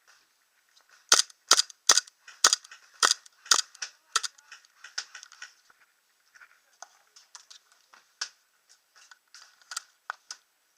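Airsoft guns firing: a quick string of about seven sharp cracks in the first few seconds, then fainter, irregular shots, with one louder crack about eight seconds in.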